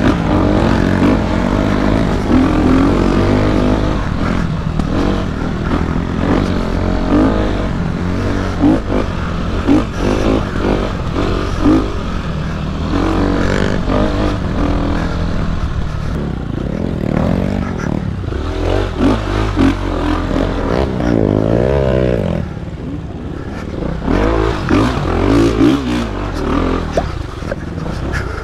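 Dirt bike engine revving up and down as the bike is ridden over a rough trail, with rattles and knocks from the bike over the bumps. A run of quick up-and-down revs comes about three-quarters of the way through.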